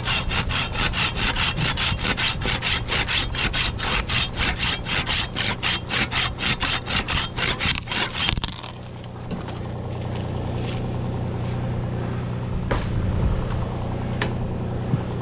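Handsaw cutting through wood in quick, even strokes, about four or five a second, stopping about eight and a half seconds in. A steady low hum runs underneath throughout.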